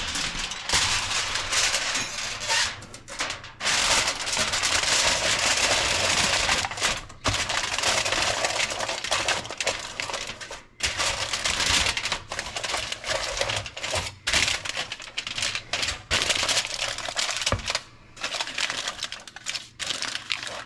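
Aluminum foil crinkling and crackling as it is pressed and crimped tightly over a baking dish, with a few short pauses.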